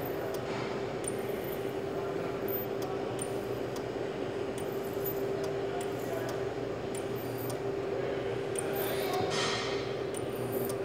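Handheld plastic welder running against a plastic tank, a steady hum with an even hiss, broken by light clicks every second or so.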